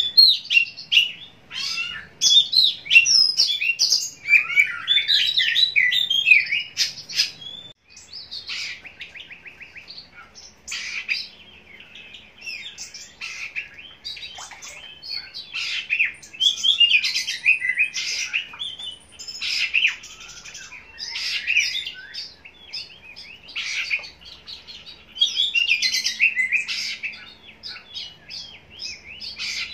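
Oriental magpie-robin (kacer) singing a long, varied song of whistles, trills and chattering phrases, in bursts separated by short pauses.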